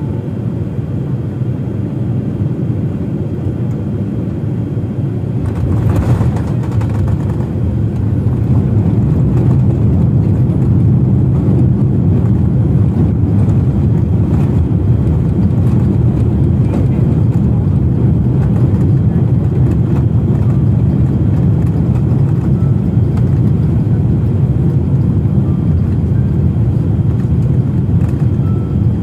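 Jet airliner landing, heard from inside the cabin: a steady low rumble, a brief jolt about six seconds in as the wheels meet the runway, then a louder steady rumble as the engines go into reverse thrust for the rollout.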